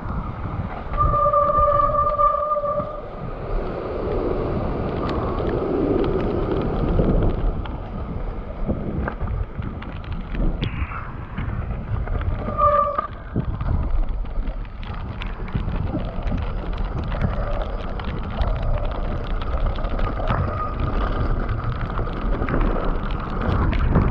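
Mountain bike descending a rough trail in heavy rain, with wind buffeting the mic and the bike rattling over the ground. A steady high squeal sounds for about two seconds near the start and again briefly halfway through.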